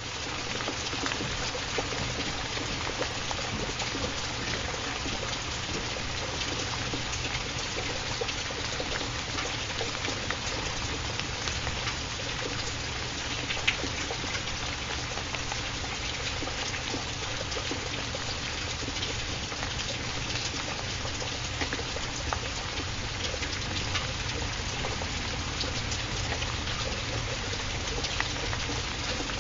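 Steady rainfall: an even hiss of many small drops with a low rumble beneath, reaching full level within the first second.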